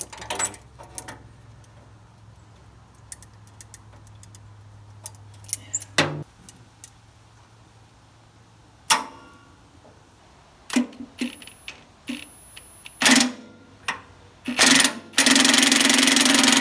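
Metal hand tools clinking and knocking against a seized tractor fender bolt, which keeps spinning instead of coming loose. A few sharper clanks come along the way, and a loud steady noise runs for about two seconds near the end.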